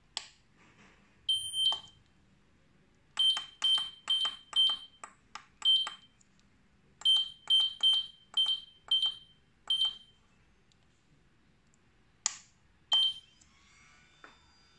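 MD666 teeth whitening lamp's control panel beeping as its buttons are pressed to set the timer: about a dozen short high beeps, each with the click of the button, in quick runs of about two a second, with a pause midway and two more near the end.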